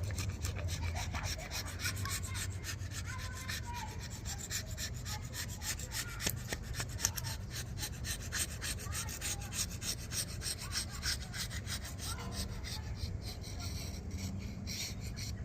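Razor blade scraping old oil pan gasket and RTV residue off the mating surface of a Chevy 350 engine block, in quick repeated strokes.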